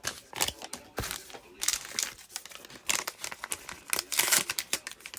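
Crinkly packaging being torn open and crumpled by hand, a dense run of irregular crackles.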